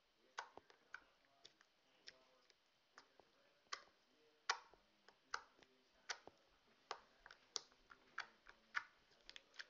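Fingers poking a sticky store-bought slime, making a string of sharp, irregular clicky pops, about two a second.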